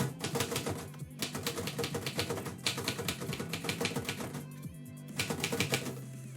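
Typewriter keys striking in quick runs of clicks with short pauses between them, over background music with steady low tones.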